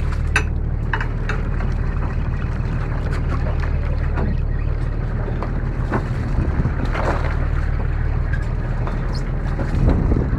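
Steady low hum of the fishing boat's engine running, with wind on the microphone and a few light knocks scattered through.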